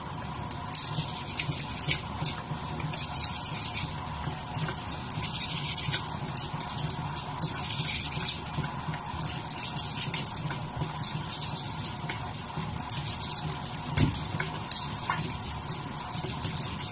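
Toothbrush scrubbing a cat's teeth in short, irregular, scratchy strokes over a steady background hum.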